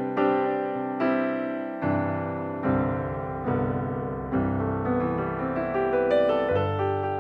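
Background music played on piano or electric piano: struck chords repeating at an even pace, with the bass note changing every second or so.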